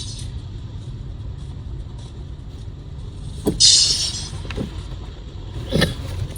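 Inside a moving car: the low, steady rumble of engine and road noise, with a short, loud hiss about three and a half seconds in and a brief sound near the end.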